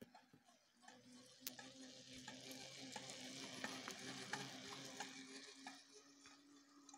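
Bicycle ridden on its back wheel passing close by on asphalt: faint tyre hiss and a low hum that swell and fade as it goes past, with light clicks about every half second.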